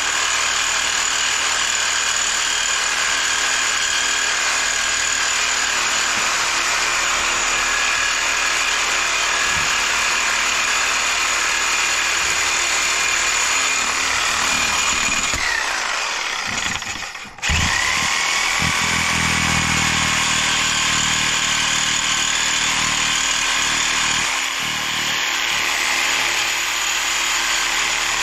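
Power tool cutting scrap metal, running steadily with a high whine. Partway through it stops briefly, then starts up again.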